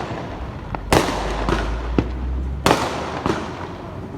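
Firecrackers exploding around the neighbourhood. There is a sharp bang about a second in, a louder one just before three seconds, and another shortly after, with smaller pops between them. Each bang trails off in a long echo.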